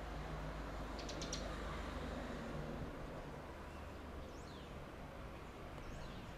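Faint, steady low hum of an approaching E 464 electric locomotive hauling an Intercity train. A few short high clicks come about a second in, and small bird chirps come near the middle and again near the end.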